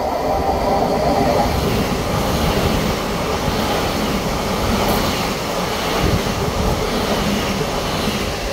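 An ÖBB Cityjet electric multiple unit passing the platform at speed: a loud, steady rush of wheels on rails and moving air.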